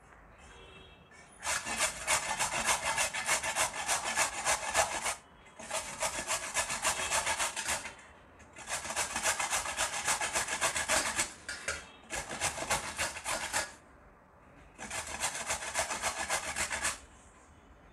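A red carrot being grated on a stainless-steel hand grater: quick back-and-forth rasping strokes, in five spells of a few seconds each with short pauses between.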